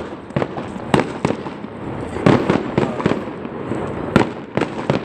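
Fireworks going off: an irregular string of sharp bangs and pops over a steady crackling din, with a few louder reports among them.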